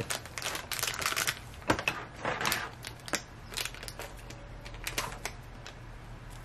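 Clear plastic bag crinkling in the hands, with irregular small clicks and taps of the little plastic toy pieces inside it. In the second half, scissors cut at the bag amid sparser clicks.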